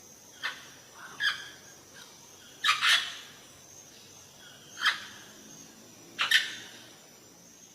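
Parrots calling: about six short, sharp calls at irregular intervals, two of them in quick pairs, over a quiet steady background.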